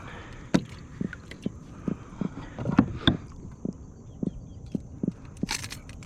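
A run of light knocks and a few scrapes, about two a second, with a brief rustling scrape near the end.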